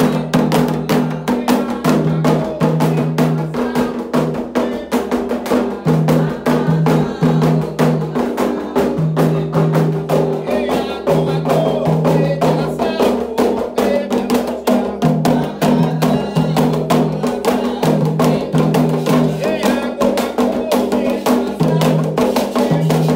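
Candomblé ritual drumming: atabaque hand drums played in a fast, dense rhythm with a struck bell or wood-like percussion keeping time, and voices singing held notes over it.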